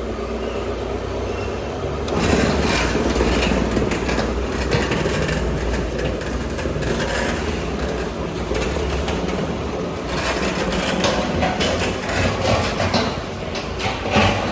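Oil drum cutting machine's electric motor running with a steady low hum; about two seconds in, a louder metal-on-metal scraping begins as the steel drum is worked, with a few knocks near the end.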